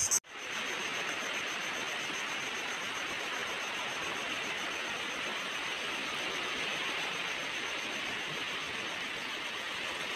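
Steady rush of sea waves washing on the shore, with a faint high cricket trill behind it.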